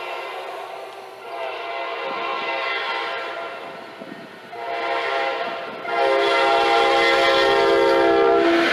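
Multi-chime air horn of a Wabtec ES30ACi diesel-electric locomotive sounding in four blasts, long, long, short, long: the pattern of a grade-crossing signal. The blasts grow louder as the locomotives approach, and the last one is the longest and loudest, cutting off near the end as the rumble of the oncoming engines comes up underneath.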